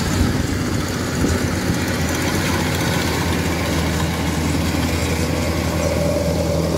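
Kubota DC105X combine harvester's diesel engine running steadily as the machine drives close by, harvesting rice.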